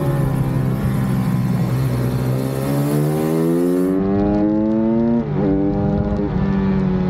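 Pit bike engine on track, heard close up. It holds a steady note, then revs up in a long rising climb, breaks off sharply about five seconds in as it shifts up a gear, and carries on at a lower, steady pitch.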